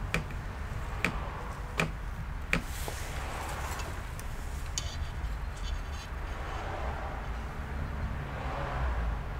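Four sharp clicks about three quarters of a second apart, a multimeter's selector being switched from voltage mode to resistance mode, over a steady low hum.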